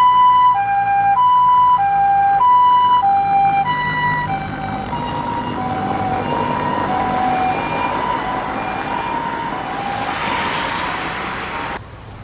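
Ambulance siren sounding a two-tone hi-lo 'pee-poh' pattern, switching between a high and a low note a little over once a second. It is loud at first, then grows fainter and slightly lower in pitch after about four seconds. Road noise swells near the end and then cuts off abruptly.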